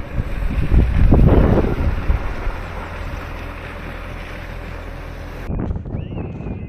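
Wind buffeting the microphone: a loud rushing roar that swells about a second in, then cuts off abruptly near the end.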